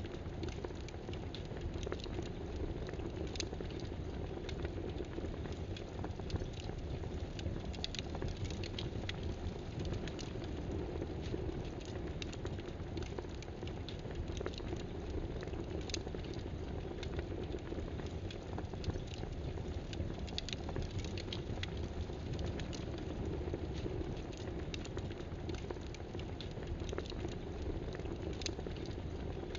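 Computer keyboard typing: light, irregular key clicks over a steady, even hiss of background noise.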